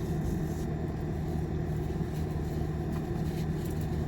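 Car engine idling: a steady low hum with no sudden sounds, heard from inside the cabin.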